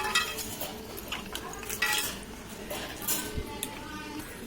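Small dishes and feeder cups clinking and scraping as seed mix is scooped and put out in a lovebird cage: a run of short clicks and rattles.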